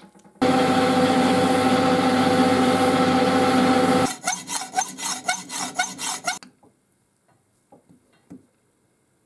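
Metal lathe spinning a freshly cut steel screw while a Scotch-Brite pad is rubbed along its thread to smooth it: a loud steady abrasive rush over the lathe's hum, cutting off suddenly. Then about two seconds of quick rhythmic rubbing strokes, about four a second, and near the end a few faint clicks.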